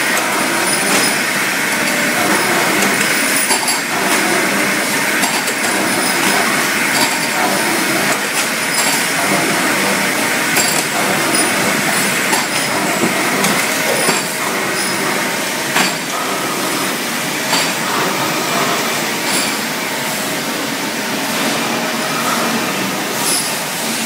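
Steady din of metalworking machinery on a factory floor, with short metal clanks and clinks now and then as a lever-operated machine is worked.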